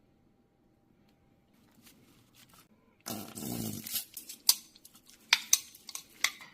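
Steamed cuttlefish being cut and handled: a loud rustling scrape about three seconds in, then several sharp clicks.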